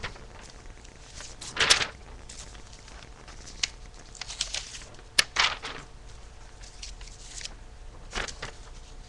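Rustling and handling noise close to the microphone: a series of short scrapes, the loudest about two seconds in, and a sharp click a little past halfway.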